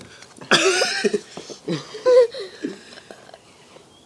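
A person's voice: a loud, harsh cough-like burst about half a second in, then a shorter pitched vocal sound around two seconds in, with no words.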